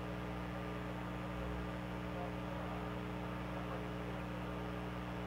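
A steady low hum made of several even tones, unchanging throughout, over a faint hiss.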